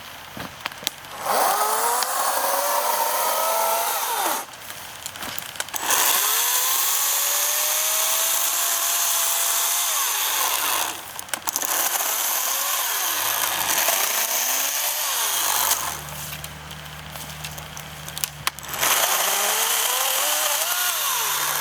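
EGO 56-volt battery chainsaw (CS1400) cutting through a branch in four long bursts with short pauses between. Each burst has an electric whine that rises as the chain spins up and then sags as it bites into the wood. A low steady hum joins in during the last few seconds.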